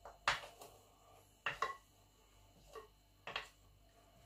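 Wooden spoon tapping and scraping against a plastic slotted spoon, knocking fried almond slivers off it: a few sharp taps, some in quick pairs, spaced about a second apart.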